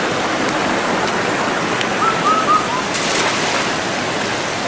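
Mountain stream rushing steadily over rocks. About two seconds in, a short call of three or four quick falling notes sounds over it.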